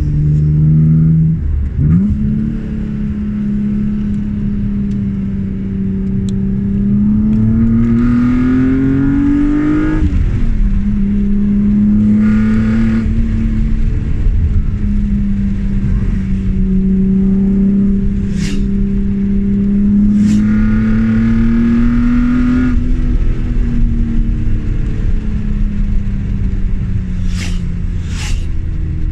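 BMW E36 M3's straight-six engine accelerating under load. Its pitch climbs and drops at gear changes about two and ten seconds in, climbs slowly again, then falls away from about twenty-three seconds in as the revs come down. A few brief clicks sound in the second half.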